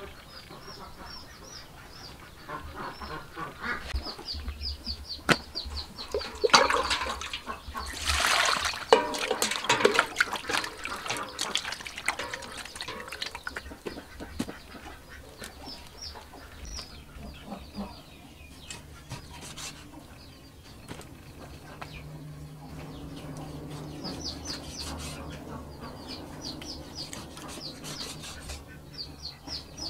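Water sloshing and splashing in a plastic basin as raw pork is washed by hand, over rapid series of small-bird chirps and the sounds of farm fowl. Near the end, a cleaver chops on a wooden block.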